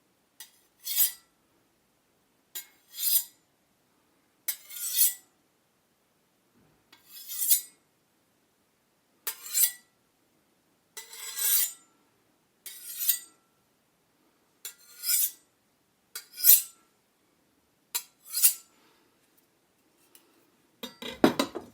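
A knife being drawn again and again, about eleven times at roughly two-second intervals: each draw is a small click and then a short metallic scraping swish that builds and cuts off. The last draw, near the end, is longer and heavier.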